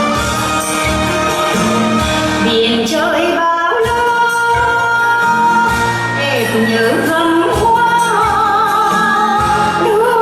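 A song: a singer's voice with vibrato over instrumental accompaniment with a steady beat, the voice coming in about two and a half seconds in.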